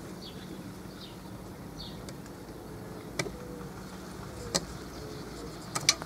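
Quiet handling of a marker pen and steel tape measure on a wooden table: a few sharp clicks and taps, about three and four and a half seconds in and twice near the end, over a steady low background hum.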